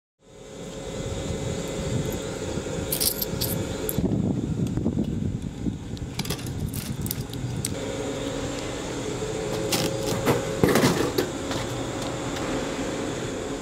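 Drink vending machine humming steadily, with clicks and metallic clinks as coins go in and a button is pressed, then a can clattering down into the dispensing tray about ten and a half seconds in.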